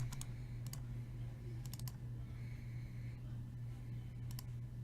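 A handful of light computer clicks, some in quick pairs, scattered over a few seconds above a steady low hum.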